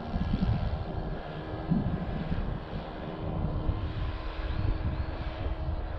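A .70 four-stroke nitro engine on a radio-controlled Tiger Moth model biplane, heard in flight as a steady droning note that swells and fades slightly as the plane passes. The engine runs smoothly on its pumped carburettor, without cutting out.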